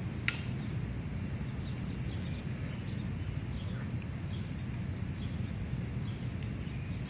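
Steady low rumble of city street background noise, with faint scattered chirps of small birds. A single sharp, high click or chirp sounds about a third of a second in.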